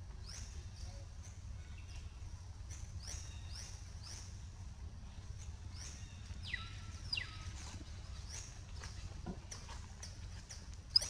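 Repeated short, high-pitched chirps, each falling in pitch, about two a second, with one longer falling squeal about six and a half seconds in, over a steady low rumble.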